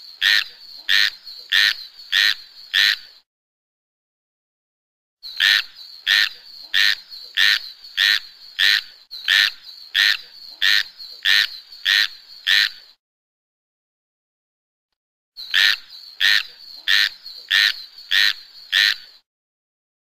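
Tree frog calling: short, high-pitched croaks repeated at a little under two a second, in three bouts with a couple of seconds of silence between them.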